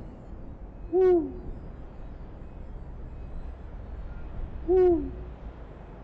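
An owl hooting twice, about four seconds apart, each a short single hoot that drops in pitch at its end, over a steady low night ambience.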